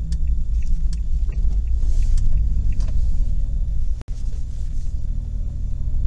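A car driving on a wet road, heard from inside the cabin: a steady low road and engine rumble with scattered light ticks. The sound cuts out for an instant about four seconds in.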